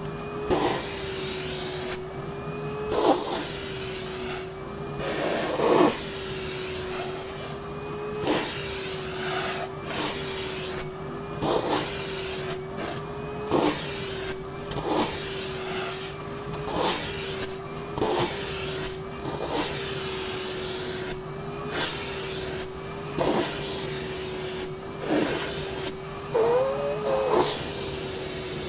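Vacuum cleaner running with a steady hum whose pitch dips and recovers as its nozzle is drawn along a cat's fur. Each stroke brings a brief rush of air, about every two seconds.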